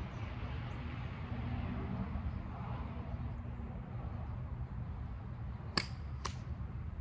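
A golf iron strikes a ball off a range mat with one sharp click about three-quarters of the way in, followed about half a second later by a second click, over a steady low rumble.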